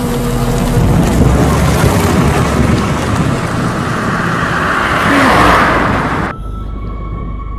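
A car approaching along a road, its engine and tyre noise building as it comes close, then cut off abruptly about six seconds in. A quieter steady humming drone follows.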